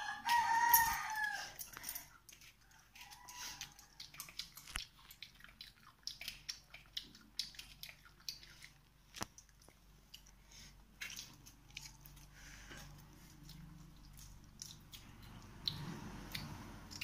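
A rooster crows once in the first two seconds, the loudest sound here. After it come scattered soft clicks and taps of hands mixing and eating rice from steel plates.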